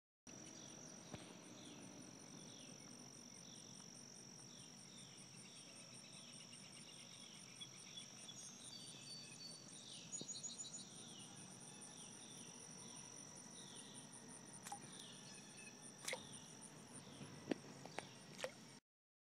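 Faint insects calling: a steady high-pitched drone with a faster pulsing trill above it. Short falling chirps repeat about twice a second, and a few sharp clicks come near the end.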